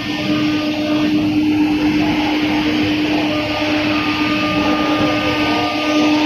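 ATC CNC router's spindle cutting a sheet of board as the gantry travels across it: a steady, loud machine noise, a constant hum under a broad hiss.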